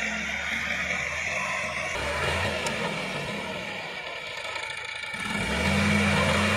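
Sonalika tractor's diesel engine running steadily under load while driving a rotavator through the soil, with the noise of the tiller working. The engine sound grows louder about five seconds in.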